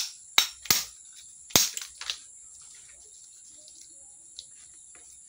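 A kitchen knife strikes a snail's shell with five sharp knocks in the first two seconds, knocking off the tip of the shell to open it for slime extraction.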